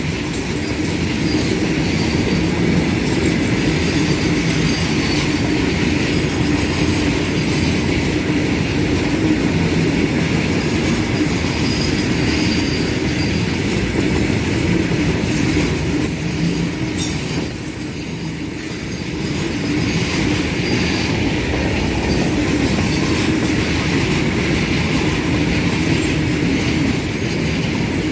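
Loaded freight train rolling past at close range: a steady rumble and clatter of wagon wheels on the rails, briefly a little quieter a little past halfway.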